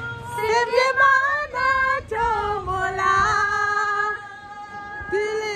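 A woman singing a slow melody in long held notes.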